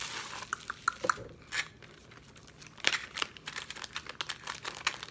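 Packaging crinkling and rustling as it is handled and opened, in irregular crackles with louder ones about a second in and near three seconds.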